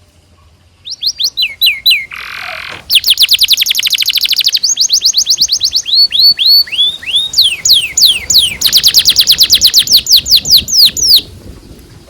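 Domestic canary singing a long phrase of repeated down-slurred whistles, a short harsh buzzy note and two long, very fast trills (rolls). The song starts about a second in and stops about a second before the end.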